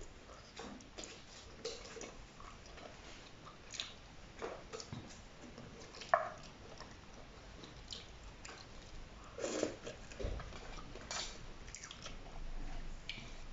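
Close-up chewing and slurping of noodles, with small clicks of wooden chopsticks against a stainless-steel pot and one sharper clink about six seconds in.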